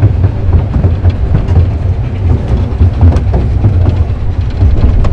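Ride on the Exbury Gardens passenger train: a steady low rumble of the running train, with scattered light clicks of the wheels on the track.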